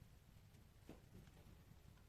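Faint wood fire crackling in a fireplace: sparse soft pops, the clearest just under a second in.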